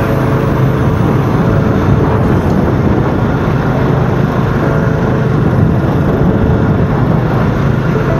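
Motorcycle engine running steadily while riding at an even speed, mixed with rushing wind and road noise.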